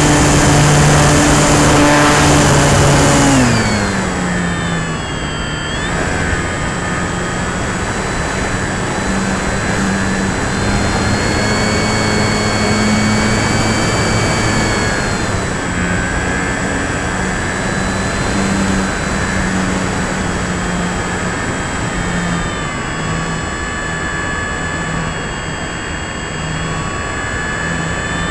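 Durafly Tundra RC plane's electric motor and propeller running, heard from an onboard camera with heavy wind rush over the microphone. The motor is at high throttle at first, its pitch drops about three and a half seconds in as the throttle comes back, and it then rises and falls with throttle changes.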